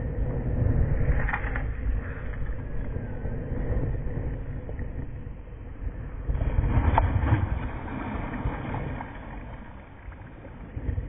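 Cast net thrown and landing on the water, its lead line and mesh settling, with short sharper splashy or handling sounds about one and a half and seven seconds in. A heavy low rumble dominates, loudest in the first three seconds and again about six to eight seconds in.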